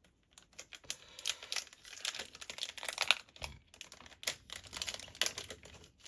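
Topps Chrome trading-card pack being opened by hand: the wrapper crinkles and tears and the cards are shuffled, a fast run of crackly clicks and rustles.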